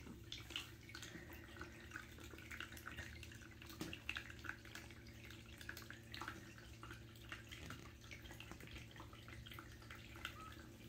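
Faint, scattered soft clicks and ticks from newborn kittens and their mother cat moving on a knitted blanket, over a low steady hum.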